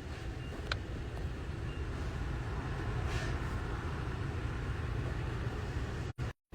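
Steady low rumble of a vehicle's engine and road noise heard from inside the cabin, with a faint tick about a second in.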